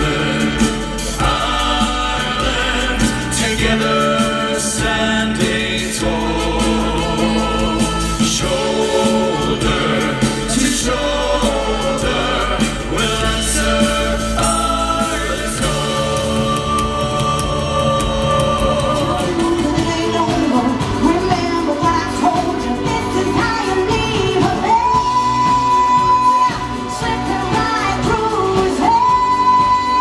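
Male vocal group singing in harmony over a live band of drums, guitar and keyboards, with long held high notes in the last few seconds.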